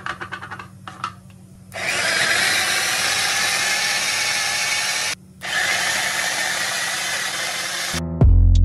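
Small electric food chopper's motor running while it minces onions, in two runs of about three seconds with a brief stop between them; a few handling clicks come before it. Music with a deep bass cuts in near the end.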